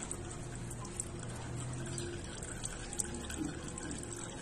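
Used engine oil trickling in a thin, steady stream from a motorcycle engine's drain hole into a plastic basin while the oil is drained for an oil change.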